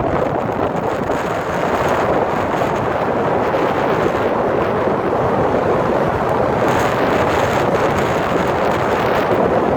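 Strong wind blowing across the microphone, a loud, steady rushing noise.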